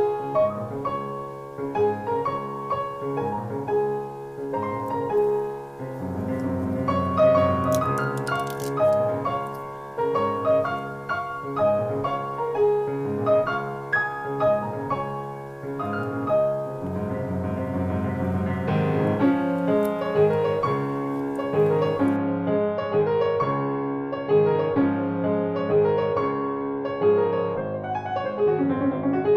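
Background piano music, a melody of separate notes over lower sustained chords.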